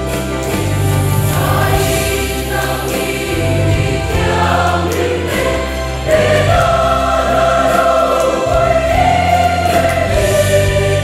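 A large mixed church choir singing a hymn in Mizo over a recorded backing track with a steady bass line.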